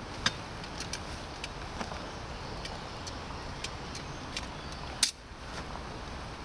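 Metal spoon clinking against a small metal camping pot: a series of light, irregular clicks, with a sharp knock near the start and another about five seconds in.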